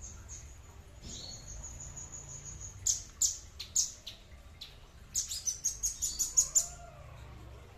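Small songbird singing: a thin high trill, a few sharp separate notes, then a rapid run of chirps about five seconds in.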